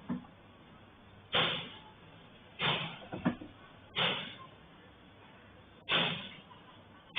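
Repeated bangs from a workshop: about six sharp impacts at uneven intervals of one to two seconds, each dying away over about half a second, with two close together around the middle.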